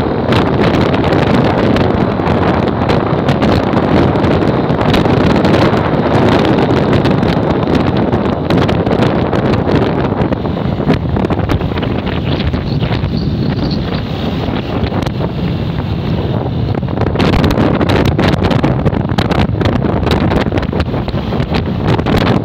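Heavy wind buffeting the microphone while riding a motorcycle at speed, a dense rumble with no clear engine note, easing slightly midway.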